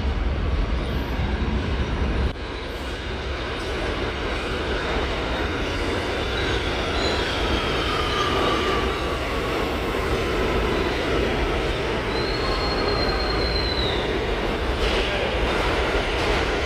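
Kawasaki-built R211T New York City subway train pulling into an underground station: a steady rumble of steel wheels on rail that grows as it comes in, with high wheel squeals, one falling in pitch partway through and one held for about two seconds near the end.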